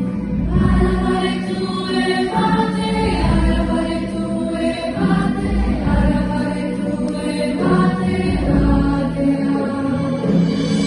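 A choir singing with the youth orchestra and combo accompanying, in sustained chords over a steady bass. The chords change about every two and a half seconds.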